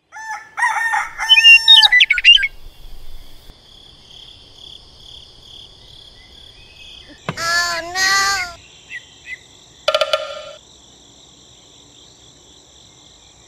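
A rooster crowing twice in quick succession about seven seconds in, after loud high chirping bird calls in the first two seconds. A faint steady high whine runs underneath, and a short tone sounds about ten seconds in.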